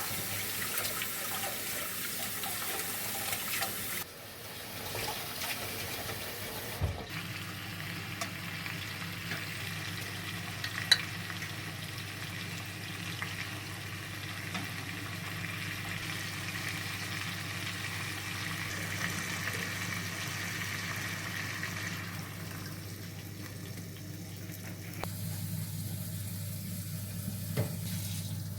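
Kitchen sounds of running water and frying, with a steady low hum coming in after several seconds. There is one sharp clink about eleven seconds in.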